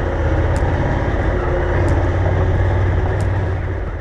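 Honda Africa Twin's parallel-twin engine running steadily under way, with wind and riding noise and a faint tick about every second and a bit. It starts to fade out near the end.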